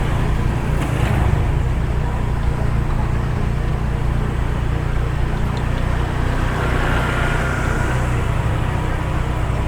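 Steady low rumble of a car's engine and road noise, heard from inside the cabin of a moving car.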